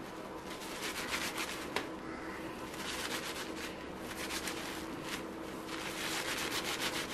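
Hands rubbing and squeezing a wet hair wig lathered with shampoo: a quick, steady run of soft, wet rubbing strokes as the shampoo is worked up into foam.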